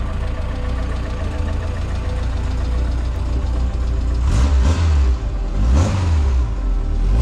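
Ford Escort RS2000's freshly rebuilt 2.0-litre four-cylinder engine idling steadily, then revved briefly twice in the second half.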